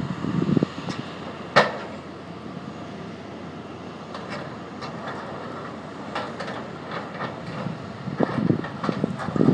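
Tracked excavator working a rip rap pile: a steady machine noise with scattered clanks of rock and steel, and one sharp knock about one and a half seconds in. Wind buffets the microphone at the start and again near the end.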